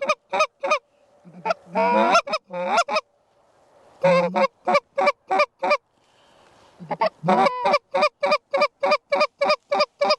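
A goose call blown in honks and clucks to imitate Canada geese and bring a flock in: a few sharp honks, a longer drawn-out note, then quick runs of clucks, the last about four a second.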